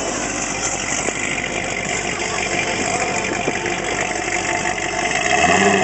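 Chevrolet Corvette Z06's 7.0-litre V8 idling, getting louder near the end.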